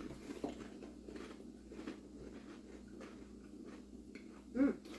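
Faint crunching of potato chips being chewed, many small irregular crackles, with a short hum-like vocal sound near the end.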